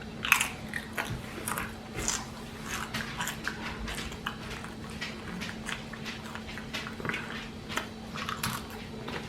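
A person chewing and biting into a chicken salad sandwich, with many irregular, crunchy mouth clicks and smacks.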